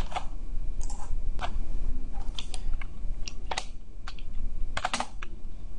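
Computer keyboard and mouse clicks, sparse and irregular, as text is copied, pasted and typed, over a steady low hum.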